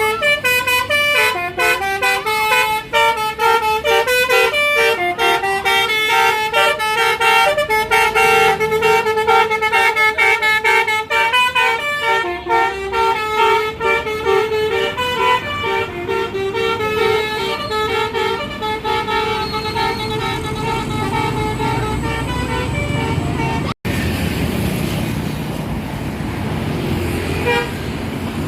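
Bus basuri horn, a multi-tone air horn, playing a fast melody of short, quickly changing notes for about twenty-four seconds. It breaks off abruptly, and engine and road noise follow.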